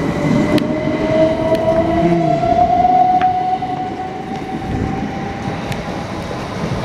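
Southern Class 377 Electrostar electric multiple unit pulling out past the platform at close range. Its traction motors give a whine that rises slowly in pitch as the train gathers speed, then fades near the end as the rear cab goes by. Under the whine is the rumble of wheels on rail, with a few sharp clicks.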